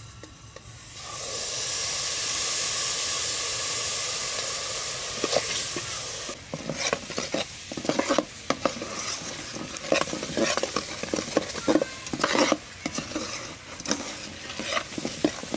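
Thick brown sauce poured into a hot aluminium pot, sizzling and bubbling: a loud steady hiss that starts about a second in. From about six seconds in, a metal ladle stirring the bubbling sauce, scraping and clinking against the pot.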